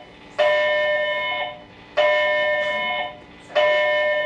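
A loud electronic alarm or bell tone sounding in repeated blasts, each a little over a second long with a short gap between, three times.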